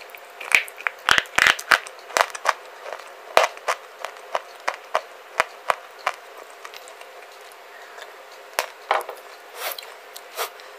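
Clay bar being bitten and chewed close to the microphone, making a quick run of sharp crunches and cracks in the first two seconds or so, then scattered single cracks, and a few more near the end.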